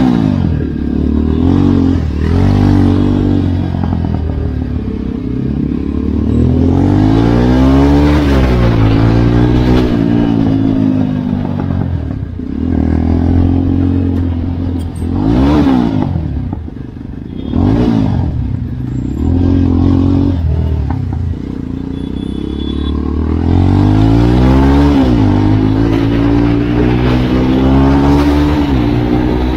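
Jawa motorcycle's single-cylinder engine pulling through city traffic. Its pitch climbs and drops back several times as it accelerates and shifts, with two quick sharp revs near the middle, under a rush of wind noise.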